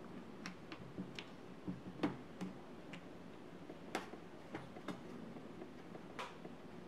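Plastic retaining latches of a Lenovo Legion 5 laptop's bottom cover unsnapping one after another as the cover is pried off by hand: a run of irregular small clicks, the clearest about two, four and six seconds in.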